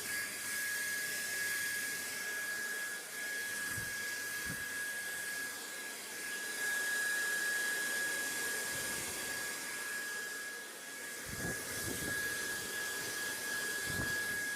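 Steady white-noise hiss with a constant thin high-pitched whine running through it, and a few faint low thuds near the end.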